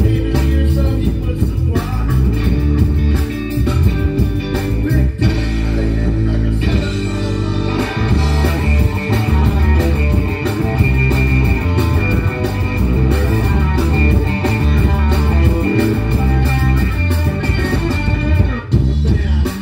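Rock band music with electric guitar prominent, and a long high note held through the middle.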